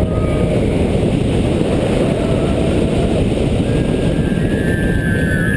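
Heavy wind rush on the microphone and the rumble of a Mack Rides steel hyper coaster train plunging down a steep drop at speed. A long held high note joins in about four seconds in.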